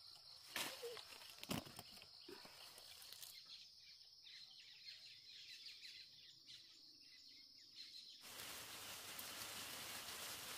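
Faint outdoor ambience: a steady high-pitched insect drone with a couple of light knocks, cut off about eight seconds in and replaced by a broad rushing hiss.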